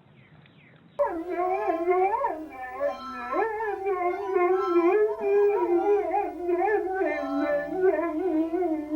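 A dog howling, starting about a second in, in a long wavering pitched howl that rises and falls.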